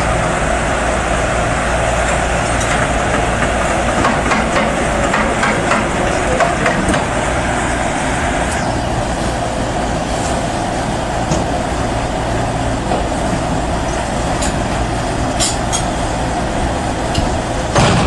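Yonggong YGX260-7 crawler excavator's diesel engine running steadily under working load, with dense metallic scraping and clanking in the first half that eases off about halfway through, then a few sharp clinks near the end.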